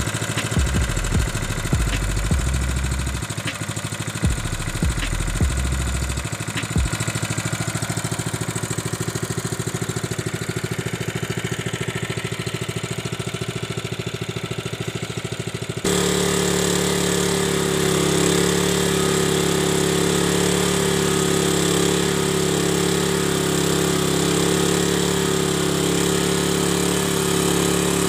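The small four-stroke single-cylinder petrol engine of a Honda WB30XN water pump runs steadily. Wind thumps on the microphone in the first few seconds. About halfway through, the engine sound steps up abruptly louder and fuller and stays there.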